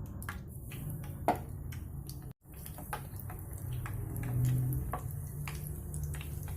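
Flour-coated chicken pieces frying in hot oil, crackling and popping irregularly, with one sharper knock about a second in, like a utensil against the pan.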